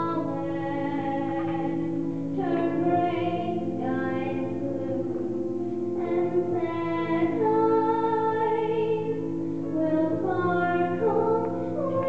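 A young girl singing a slow song solo into a handheld microphone, holding long notes, over a sustained instrumental accompaniment.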